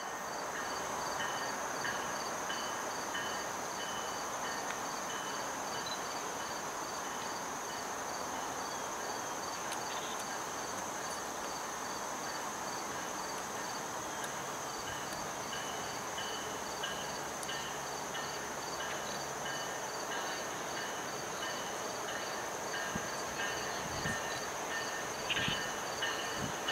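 Insects chirping in a steady, evenly repeating pattern over a constant background hiss, with a few faint knocks near the end.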